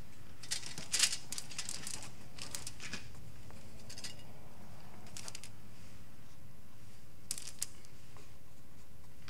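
Disposable aluminium foil pan crinkling and scraping as cubed butter is spread by hand over dry cake mix, in several brief bursts of light clicks and rustles.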